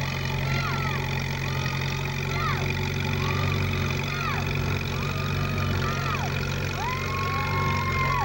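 Antique tractor engine running steadily as it pulls the sled. Over it come short high squeals that rise and fall in pitch, about one a second, then one long held squeal near the end.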